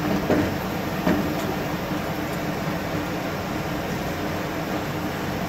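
Water poured from a jug into a large aluminium pot of sliced raw mango, a steady splashing. Twice in the first second or so, the metal pot knocks as a hand moves it by its handle.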